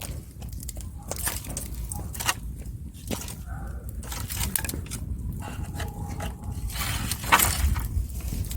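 Burning wood fire crackling with irregular sharp pops, the loudest about seven seconds in, over a low steady rumble.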